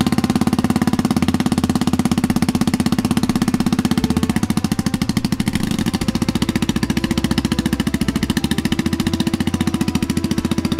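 Custom BSA Scrambler 650's big single-cylinder engine idling through an aftermarket exhaust, an even, slow pulse of about ten to twelve beats a second with no revving.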